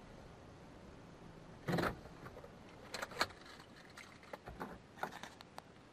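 Small clicks and rattles inside a car, with one louder knock about two seconds in and a run of light clicks after it.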